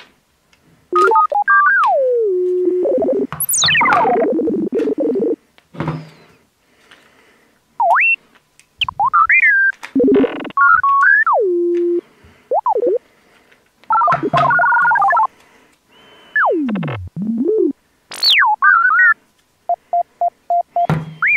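Electronic synthesizer music or sound effects: single notes that swoop up and down in pitch, playing in short phrases with brief gaps between them.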